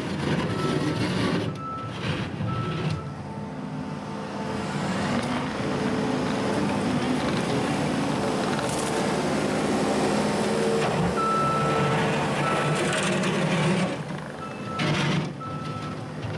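New Holland C232 compact track loader's engine working, its pitch rising and falling, with the backup alarm giving short spells of beeps as it reverses.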